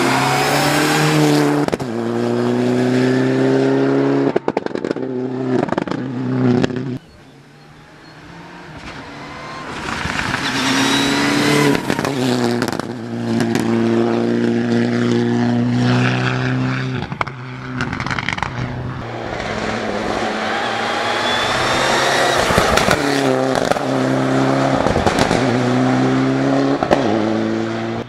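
Mitsubishi Lancer Evolution IX rally car's turbocharged four-cylinder engine driven hard, revving up and changing gear repeatedly. About seven seconds in the engine sound drops away abruptly, then builds again and keeps pulling through the gears.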